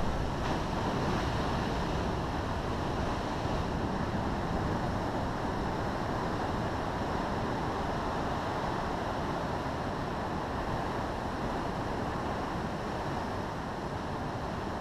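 Ocean surf breaking against coastal rocks and rushing through a narrow rock gully, a steady roar of churning water.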